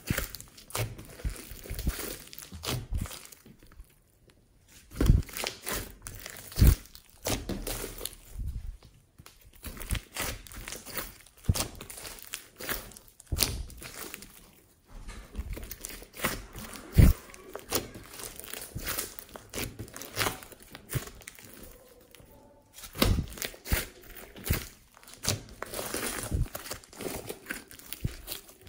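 A large mass of slime mixed with clay and floam beads being squeezed, stretched and pressed by hand: an irregular run of sticky clicks, pops and crackles, with a few louder pops along the way.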